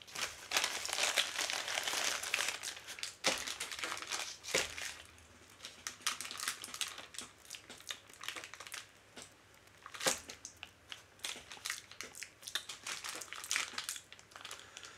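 Plastic packaging crinkling and rustling as a small bagged parcel is handled and opened: a dense rustle for about the first three seconds, then scattered crackles with a few sharper clicks.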